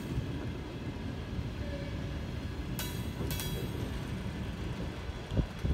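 Freight train of railway tank cars rolling past: a steady low rumble of wheels on rail, with two sharp metallic clacks about three seconds in and a thump near the end.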